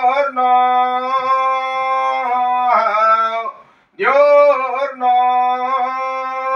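A man's voice chanting a Sanskrit Vedic hymn in long drawn-out held notes, with a short breath-break just under four seconds in before the next phrase.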